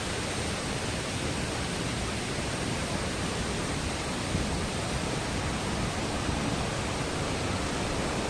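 Waterfall's steady rushing roar of falling water, constant and unbroken.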